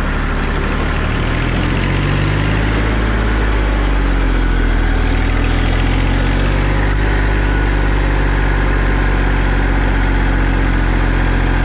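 Massey Ferguson 35 tractor's diesel engine revving up over the first few seconds, then running steadily at about 1700–1800 rpm with the PTO engaged.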